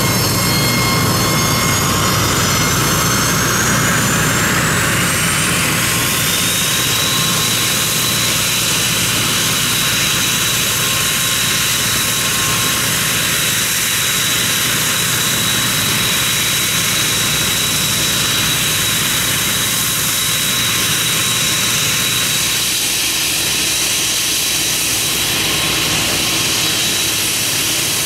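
Turboprop aircraft engines spooling up: a turbine whine rising in pitch over the first several seconds, then holding a steady high whine over a constant rumble.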